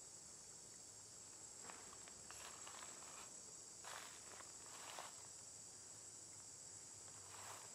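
Faint, steady high-pitched drone of insects, with a few brief soft rustles of dry leaf litter through the middle.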